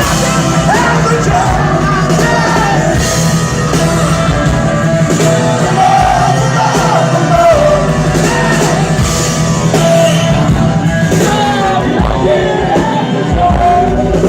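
Live rock band playing loud and steady, with voices singing and shouting over the music.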